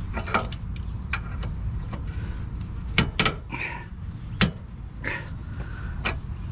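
Metal clinks and clicks of a wrench fitting onto and turning the rusted lower rear shock-absorber nut of a 2006 Nissan Pathfinder, freed up with WD-40, with a few short scrapes, over a steady low background rumble.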